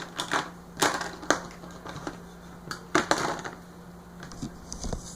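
Plastic pieces of a Play-Doh playset being handled and set down, making a series of irregular clicks and knocks. The loudest come about a second in and about three seconds in, with a few lighter ones near the end.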